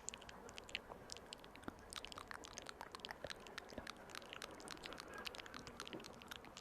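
Close-miked ASMR mouth sounds: quick, irregular wet clicks and smacks, several a second.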